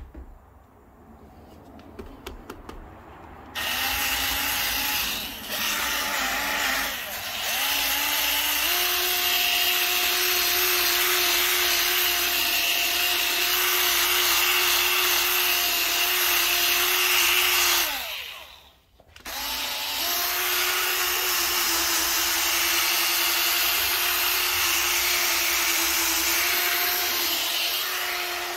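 Milwaukee cordless mini polisher with a foam pad buffing cutting compound into a car's painted wing mirror after wet sanding. The motor starts a few seconds in with a steady whine that steps up and down in speed a few times, stops briefly about two-thirds of the way through, then runs steadily again.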